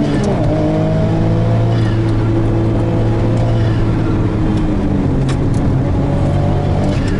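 Autozam AZ-1's small turbocharged three-cylinder engine heard from inside the cabin, pulling hard. Just after the start the note breaks for an upshift, then the pitch climbs slowly, falls away over the next two seconds as the car slows, and changes again near the end. A few sharp clicks come through over the engine.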